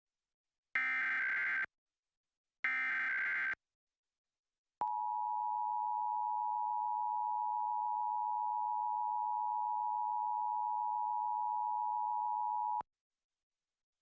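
Emergency Alert System test signal: the last two of three digital SAME header data bursts, each about a second long with short gaps between them. After about a second of silence comes the EAS two-tone attention signal, held steady for about eight seconds and cutting off sharply near the end.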